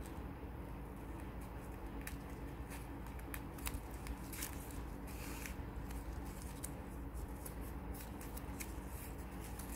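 Satin ribbon rustling and scratching in quick irregular ticks as it is threaded through a woven ribbon knot and tugged tight by hand, over a faint steady low hum.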